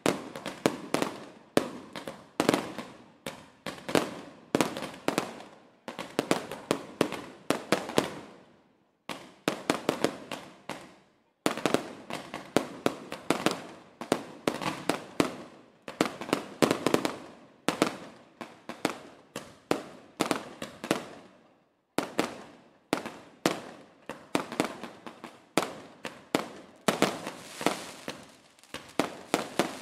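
Fireworks going off in rapid volleys of sharp bangs, several a second, each with a short echoing decay. The barrage stops abruptly for a moment three times.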